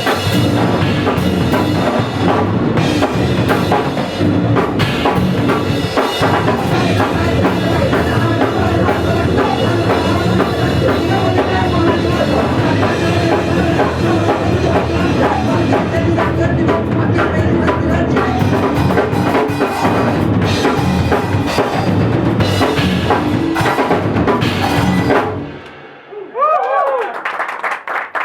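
Drum kit and bass guitar of a two-piece punk band playing a song loudly, which stops abruptly near the end.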